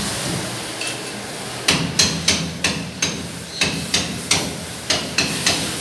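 Hammer striking metal: a run of about a dozen sharp blows, roughly three a second, beginning a couple of seconds in, each with a short metallic ring.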